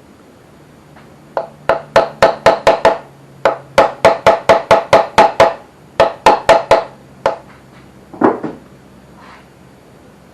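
Quick runs of hammer taps ringing on metal, about five strikes a second, in three bursts followed by two single knocks.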